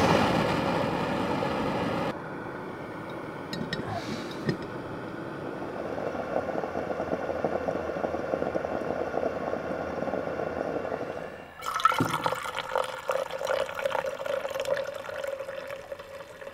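A canister backpacking stove's burner hisses at full flame, stopping abruptly about two seconds in. Then an aluminium stovetop moka pot gurgles as the coffee comes up. Near the end, hot coffee is poured into an insulated mug.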